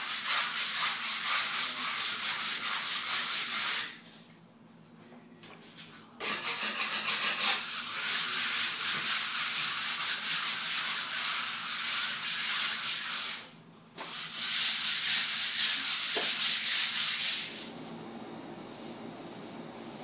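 Hand sanding a painted interior wall: sandpaper rubbing on the wall surface in quick back-and-forth strokes, in three long spells broken by two short pauses.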